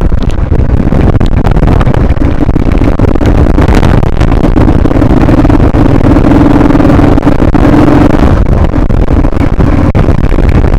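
Motorcycle engine running while riding, under heavy wind buffeting on the microphone. A steady engine hum stands out from about four to eight seconds in.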